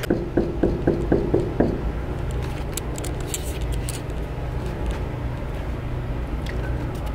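Handheld camera microphone noise: a quick run of about seven light knocks or taps in the first second and a half, then a steady low rumble with a few faint clicks.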